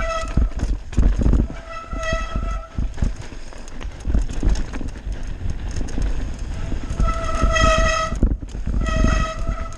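Mountain bike descending a rough dirt trail: low rumble and rattle from the tyres and frame over roots and stones, with a high, buzzing tone that keeps one pitch and comes and goes in spells of about a second, four times.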